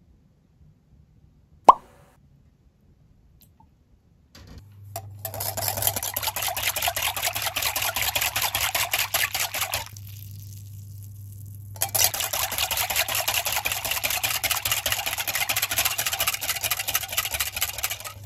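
A single sharp plop just under two seconds in, then a wire whisk beating milk and oil fast in a glass bowl, its wires scraping and clinking against the glass in quick, continuous strokes. The whisking comes in two long spells with a pause of about two seconds between, over a faint steady low hum.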